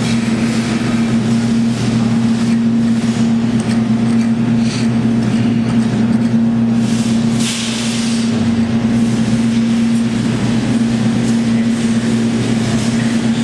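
Steady low electrical hum from an arcade claw machine while a game is played, with a constant haze of arcade background noise.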